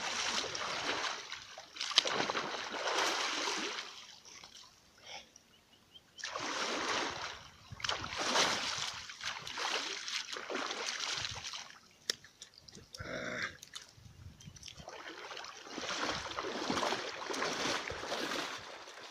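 Water splashing and sloshing in repeated stretches of a few seconds, as a man waist-deep in the water throws water over himself with his hands and wades about.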